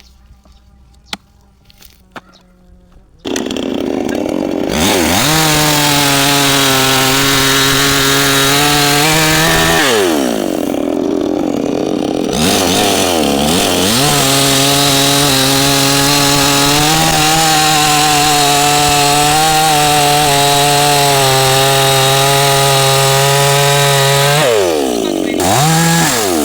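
Two-stroke chainsaw revving up about three seconds in and held at full throttle cutting wood, its pitch steady. About halfway it eases off with a falling then rising pitch before running steady again, and near the end it drops back with a quick blip of the throttle.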